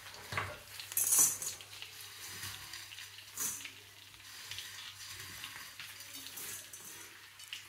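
Handfuls of dry broken instant noodles dropped by hand into a hot wok, pattering and rustling against the metal with scattered light clicks, strongest about a second in and again about three and a half seconds in.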